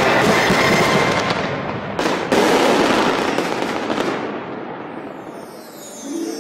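Aerial fireworks bursting: dense crackling and booming from shells, with one loud boom about two seconds in. The bursts then die away and fade out over the last couple of seconds.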